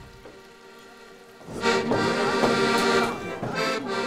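Accordion starting to play held chords about a second and a half in, after a quiet start.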